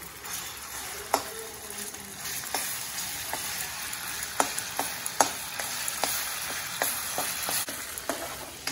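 Ginger-garlic paste sizzling in hot oil in a metal kadhai, with a steady hiss. A steel spoon clinks and scrapes against the pan every second or so as the paste is stirred.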